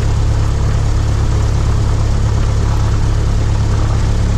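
Cessna 172's piston engine and propeller running steadily at low power while taxiing, heard from inside the cockpit as a loud, even drone.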